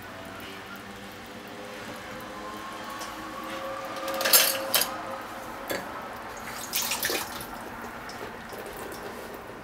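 Water running, with two louder splashing bursts about halfway through and again about seven seconds in.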